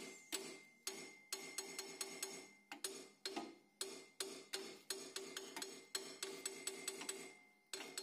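A hammer tapping repeatedly on a car's rusty rear brake drum, about three light knocks a second, each ringing briefly. The knocking is meant to free a jammed wheel and loosen the brake dust inside the drum.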